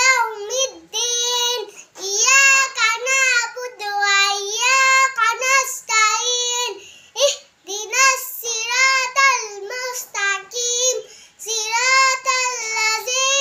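A young girl singing unaccompanied in a high voice, holding notes in short phrases with brief breaths between them.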